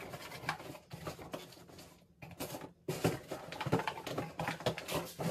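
A cardboard box and its packaging being handled: irregular rustling, scraping and light knocks and clicks.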